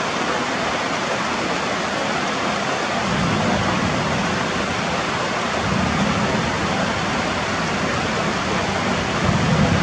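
Heavy rain falling steadily as an even hiss, with a low rumble that swells and fades a few times.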